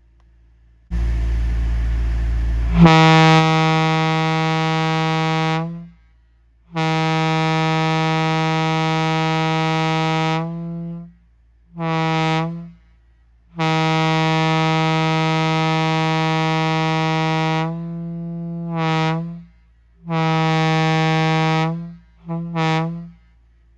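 Railroad air horn blown in a series of blasts of one steady tone: long blasts of three to four seconds, shorter ones, and two quick toots near the end. A rush of air noise comes just before the first blast, and the longest blast sags in pitch and level as it trails off.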